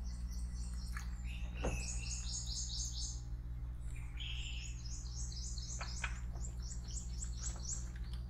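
A songbird singing two phrases of quick, evenly repeated high notes, the first about two seconds in and the second from about four and a half seconds to near the end, over a steady low hum.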